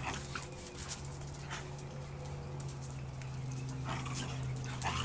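Dogs moving about and sniffing each other, with a few faint short clicks and scuffs over a steady low hum; no barking.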